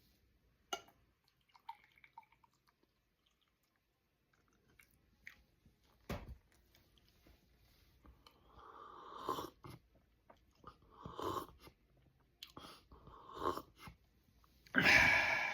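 A person eating: chewing and other mouth sounds in short bursts, with a few sharp clicks and a louder burst of noise near the end.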